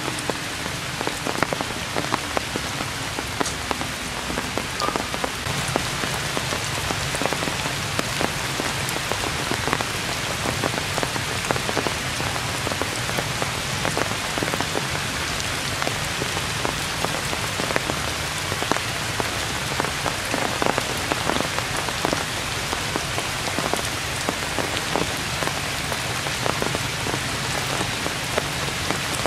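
Heavy rain falling steadily on dense forest foliage, with many sharp taps of single drops landing close by.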